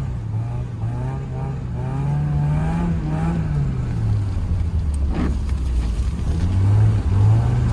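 Car engine running and revving while driving, its pitch rising and falling.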